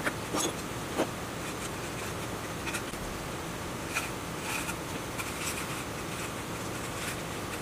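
Hand-cranked coil winding machine being turned while copper wire is wound onto a plastic coil former, winding new coils for a generator rewind. Scattered light clicks and scratchy rubbing sound over a steady hiss.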